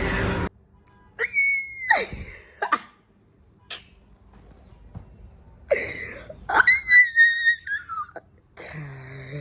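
A young woman screaming with excitement on seeing a test result she had expected to fail, which turns out to be a pass. There are high-pitched squeals about a second in and again from about six to eight seconds in, each dropping in pitch at the end. Background music cuts off just after the start.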